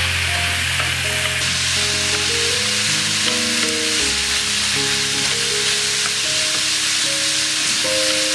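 Salted baby squid with lemongrass and garlic sizzling in a hot pan as it is stir-fried, a steady hiss, over background music.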